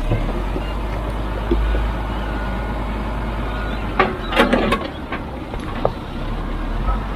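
Heavy construction machinery running with a steady low diesel rumble, with a few sharp knocks about four seconds in.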